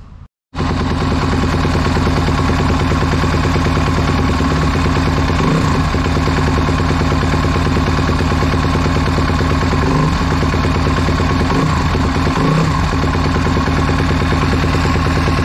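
A 2007 Suzuki RM-Z250's single-cylinder four-stroke engine idling steadily, not yet fully warm. It cuts in about half a second in.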